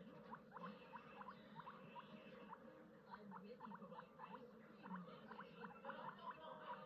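Guinea pigs chewing hay: a quick, faint run of small crunches, several a second, getting busier in the second half.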